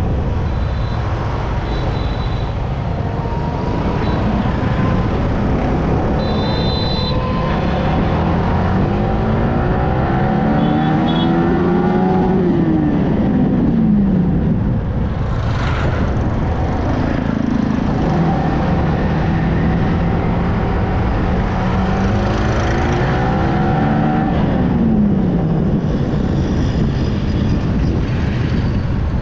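Yamaha R15M's single-cylinder engine on the move, its revs climbing and dropping twice with a steady stretch between, over constant wind and road rumble.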